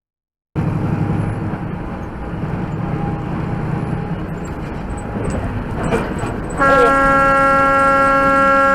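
Road and engine noise of a moving vehicle, then about two-thirds of the way through a vehicle horn sounds one long, steady blast that is the loudest thing heard.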